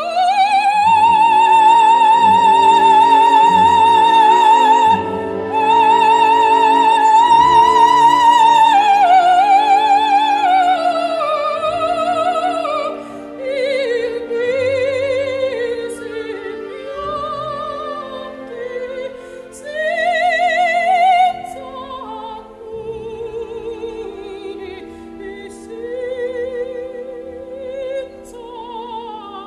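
Operatic singing with a wide vibrato over orchestral accompaniment: long held high notes at first, then softer, lower phrases after about twelve seconds.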